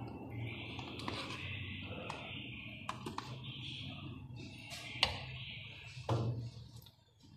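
Metal spoon clicking and tapping against a plastic tub and blender jug as ice cream is scooped in: a few scattered light clicks, a sharper one about five seconds in and a duller knock about a second later.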